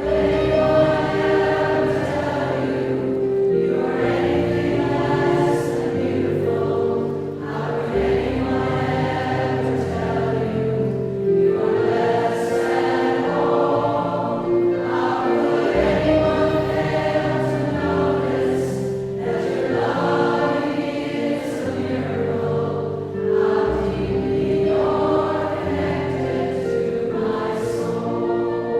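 Choral music: a choir singing long held notes over an accompaniment whose bass changes every few seconds.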